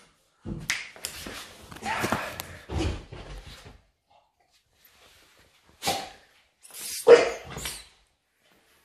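A dog barking in play: a busy run of barks over the first few seconds, then a pause, then a few short barks near the end.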